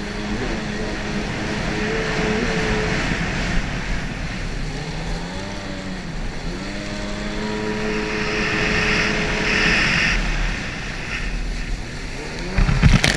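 Racing jet ski engine running at speed, its pitch rising and falling as the throttle changes through the turns, over rushing water spray and wind. A sudden loud burst of noise comes near the end.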